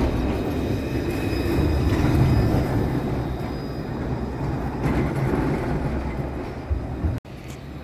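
Tram running on street rails: a steady low rumble of wheels on track with a faint steady high whine on top. It cuts off abruptly near the end, then quieter sound follows.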